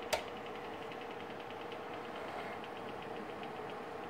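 Kodak Carousel 760H slide projector's cooling fan running with a steady hum and a quick, even ticking. A sharp click just after the start comes as the projector's lamp is switched on.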